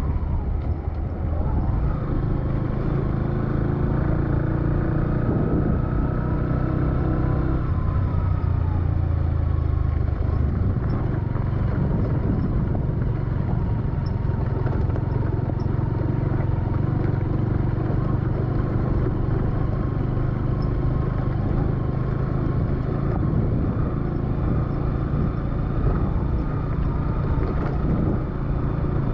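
A motor vehicle's engine running steadily on the move, with tyre and road noise, its note shifting about eight seconds in.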